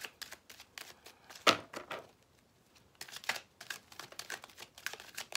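A deck of cards being shuffled by hand, a quick run of soft card flicks and riffles that pauses briefly about halfway through. There is one louder thump about a second and a half in.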